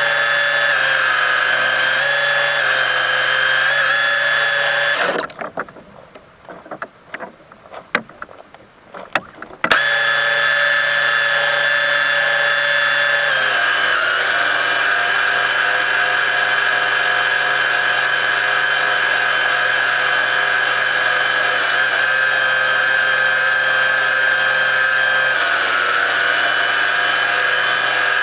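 A radio-controlled mini boat's motor running with a steady whine, heard from on board the hull. About five seconds in it cuts out for some four seconds, leaving only a few faint knocks, then runs again; later its pitch drops slightly twice.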